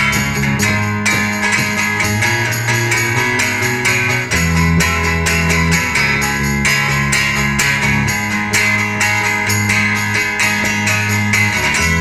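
Acoustic guitars strumming a steady rhythm in an instrumental passage of a live song, over low sustained notes that change every couple of seconds.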